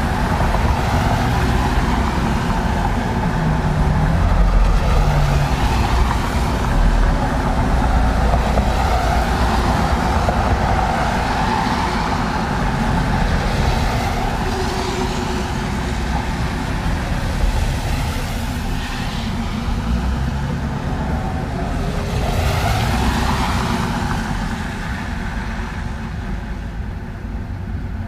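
Road traffic on a wet street: cars passing one after another, their tyres hissing on the wet asphalt over a low rumble of engines. Each pass swells and fades, and the traffic thins near the end.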